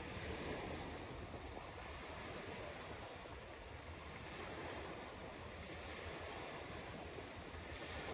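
Small waves washing onto a sandy beach, swelling and easing slowly, with wind noise rumbling low on the microphone.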